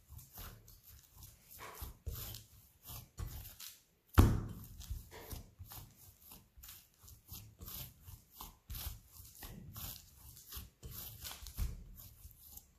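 Hands kneading bread dough in a glass bowl: a run of irregular soft presses and slaps, a few each second, with one louder knock about four seconds in.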